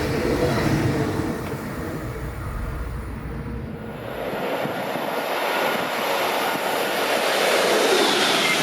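A German high-speed passenger train (ICE or Intercity) passing at speed with a loud rushing rail noise. The noise eases about four seconds in, then swells again toward the end, where a whine drops sharply in pitch as the train goes by.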